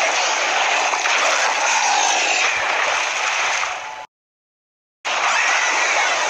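Film sound of rushing surf and heavy splashing water, a dense, loud wash of noise. The sound cuts out completely for about a second past the middle, then comes back.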